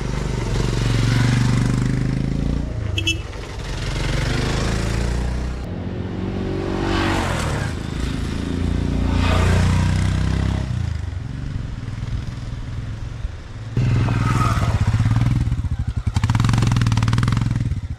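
Motorcycle engine running while riding a rough off-road track, its revs rising and falling. The sound changes abruptly about six and fourteen seconds in.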